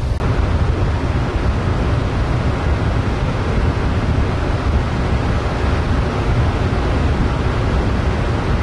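Steady low rumble of the ferry Confederation under way, with a constant rushing of wind on the microphone over it.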